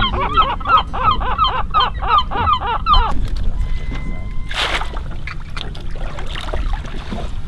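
A large gull calling in a fast series of harsh cries, about four a second, which stops about three seconds in. After it, a low steady rumble remains, with one short burst of noise about four and a half seconds in.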